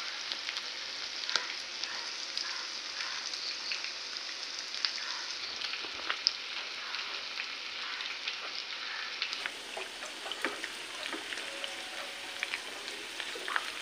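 Marinated chicken pieces shallow-frying in hot coconut oil in a kadai: a steady sizzle full of small crackles and pops. Near the end a spatula turns the pieces in the pan.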